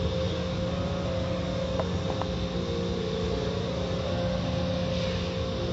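Automatic car wash heard from inside the car: the steady hum and rush of the wash machinery, with water spray and cloth brush strips sweeping over the windshield.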